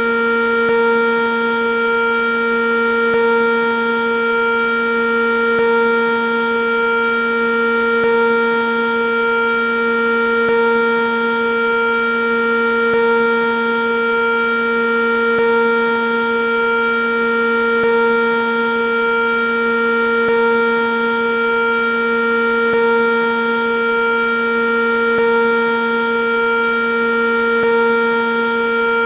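Sentry 3V8 outdoor warning siren sounding a loud, steady tone at full speed. Its loudness swells and fades about every two and a half seconds.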